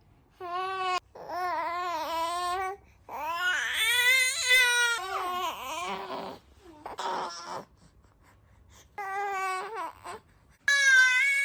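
A baby boy's 'roar': a series of high-pitched, drawn-out, wavering shouts and cries with short pauses between them, the loudest and highest about four seconds in and again near the end.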